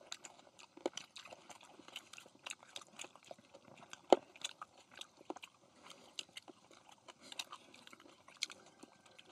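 Close-up chewing and crunching of grilled pork belly with green onion kimchi: irregular wet clicks and crunches, with one louder snap about four seconds in.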